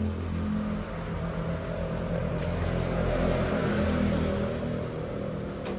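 A motor vehicle's engine running steadily nearby, a low hum that grows a little louder toward the middle and eases off near the end, over the sizzle of longanisa sausages frying in a pan.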